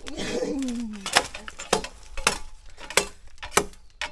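A machete chopping into a green bamboo culm: about five sharp strikes, a little over half a second apart.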